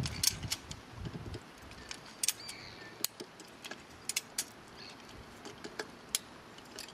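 Strainrite XT1 wire strainer being cranked with its ratchet handle: sharp metallic clicks at irregular intervals as the toothed spool winds the fence wire tighter.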